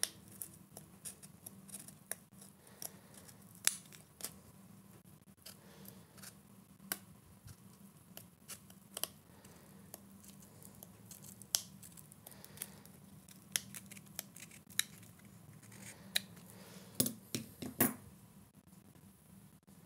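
Scissors snipping: irregular short cuts, a few a second with pauses between, and a quick run of louder snips near the end.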